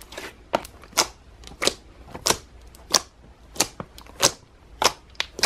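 Large batch of gold slime squeezed and pressed with the fingers in a plastic tub, giving sharp wet clicks and pops in a steady rhythm of about one every two-thirds of a second.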